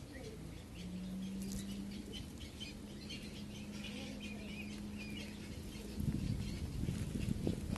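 Kitten chewing and crunching its food close up; the crunching is loudest from about six seconds in. Small birds chirp throughout, and a steady low hum runs for several seconds in the middle.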